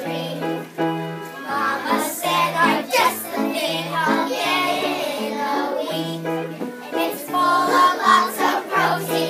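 A group of young children singing a song together over an instrumental accompaniment with a steady, repeating bass line.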